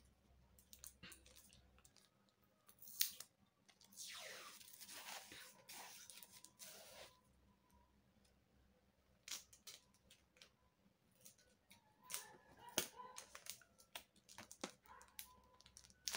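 Brown packing tape pulled off its roll in one long rasping stretch a few seconds in, then cut with scissors and handled, giving scattered small clicks and crinkles.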